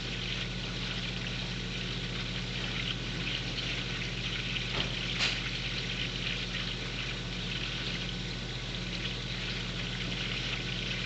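Saltwater reef aquarium's water circulation: a steady crackling, trickling hiss over a low steady hum, with one short click about five seconds in.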